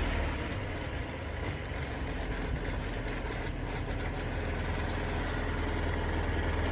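Engine of a 1988 Sea Ray boat idling steadily during a test run on a water hose.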